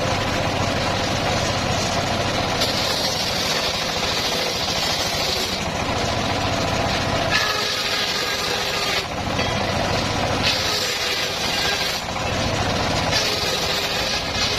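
Engine-driven homemade circular sawmill running steadily, with the blade cutting through teak logs in four stretches of louder high-pitched noise, each lasting one to three seconds.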